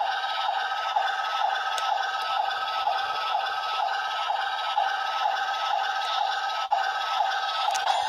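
Bandai DX Legendriver toy belt playing its electronic standby loop through its small speaker: a loud, pulsating sound that repeats at a steady beat and runs on while a card is still in the reader.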